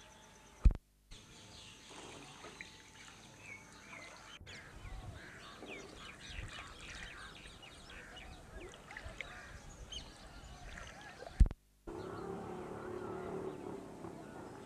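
Outdoor ambience of birds chirping, many short high calls over a low background haze. It is broken twice, a little under a second in and again near the end, by a sharp thump and a moment of dead silence where the film is cut. After the second cut a steadier low hum sets in.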